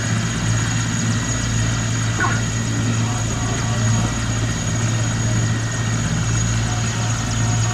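Several military helicopters running on the ground before takeoff: a steady, loud drone of rotors and engines, with a thin, steady high whine above it.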